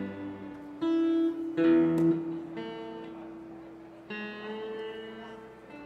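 Guitar chords struck one at a time and left to ring out, a new chord about every second, the loudest near two seconds in.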